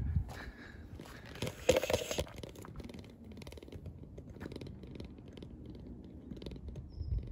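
Low, uneven wind rumble and handling noise on a phone microphone, with a short, louder rustle about two seconds in.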